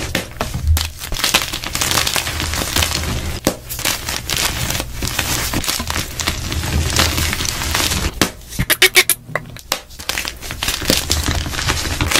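Bare hands squeezing and crumbling blocks of dyed gym chalk into powder, a dense crunching crackle, with a quick run of sharper crunches about eight seconds in.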